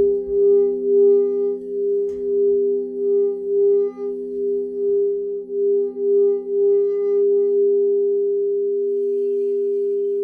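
Singing bowls ringing in several steady overlapping tones, the main tone wobbling about twice a second before settling into an even hum near the end.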